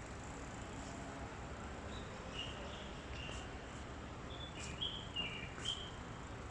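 A bird chirping a few short, high notes over steady background noise, with a couple of light clicks near the end.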